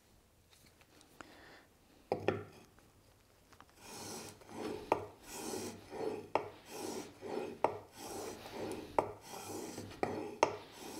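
A blade clamped in a honing guide is pushed back and forth over micron-graded abrasive sheets on a glass plate, sharpening its edge. After a single knock about two seconds in, the gritty rubbing strokes begin about four seconds in, roughly one and a half a second, with a light click at each stroke.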